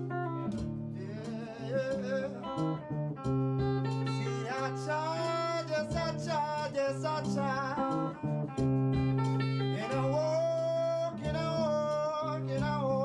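Music: a band playing, with guitar notes over a low bass line and a voice singing a wavering melody.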